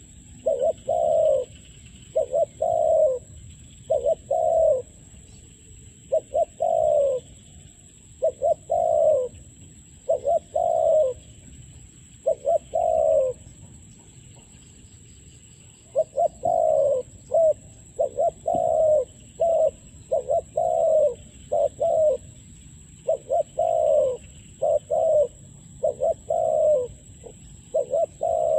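Spotted dove cooing over and over, short coos about once a second, each breaking into two or three quick notes, with a gap of a couple of seconds around the middle. A steady faint high-pitched whine runs underneath.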